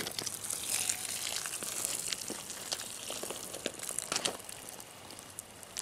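Boiling water poured from a kettle onto bare soil and gravel, a steady hiss with many small scattered clicks.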